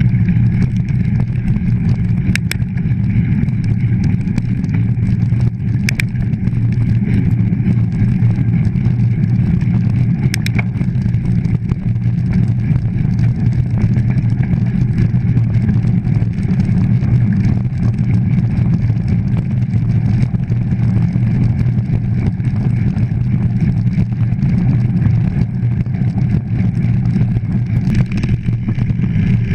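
Mountain bike riding over dirt and gravel tracks, heard through a GoPro: a steady low rumble of wind buffeting and tyre rolling noise, with a few sharp clicks of the bike rattling over bumps in the first ten seconds or so.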